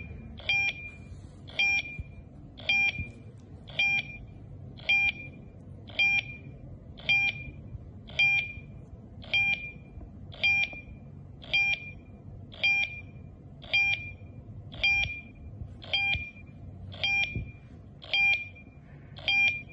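Tuya alarm control panel beeping steadily, one short high beep about every second, while it sits in Wi-Fi pairing mode waiting to connect to the Tuya Smart app.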